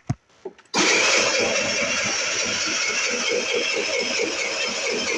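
A 50cc Wildfire R8 scooter's electric starter cranking the cold engine from about a second in: a steady whirring with a fast, even chugging beat, and the engine doesn't catch. A short click comes just before the cranking starts.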